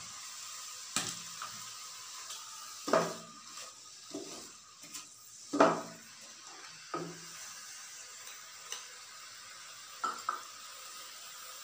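Chopped onions sizzling in hot oil in a pan, with a wooden spatula knocking and scraping against the pan now and then as they are stirred.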